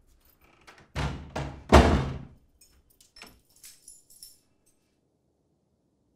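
A key working the lock of a wooden front door, then the door shutting with a loud thud about two seconds in. A few faint light clicks of the keys follow.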